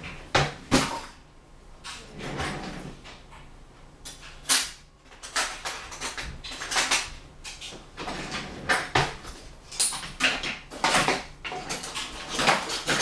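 Kitchen handling noises: a run of irregular knocks, clatters and rustles, with a few sharp clicks, as things are moved about in the kitchen.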